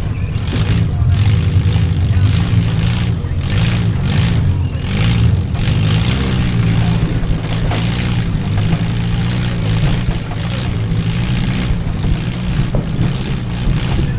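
Demolition derby van's engine running hard and revving, heard from inside the van, with frequent short bursts of rattling noise over it.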